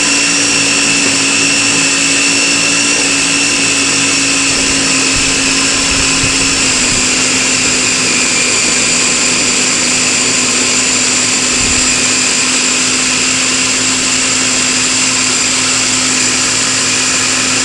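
Ninja blender running steadily with its stacked blades churning bananas and milk into a thick whip, its motor head held down by hand. It makes an unbroken motor whine with fixed high tones.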